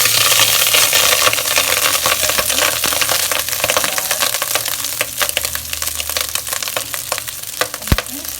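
Hot desi ghee sizzling and crackling loudly in a pan as an ingredient goes in, the sizzle slowly easing off, with sharp pops and the odd clink throughout.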